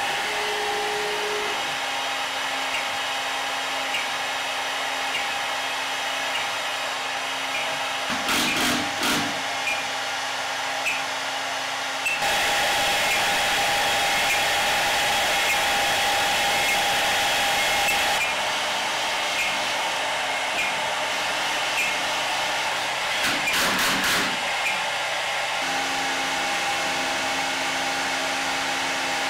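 Avid CNC Pro 4896 router's spindle running with a steady high whine while the machine drills and routes into MDF. A louder, rougher stretch of cutting falls around the middle, and short harsh bursts come about a third of the way in and again near the end.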